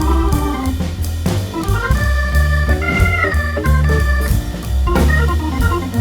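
Background music led by an organ, with a steady bass line and a regular beat.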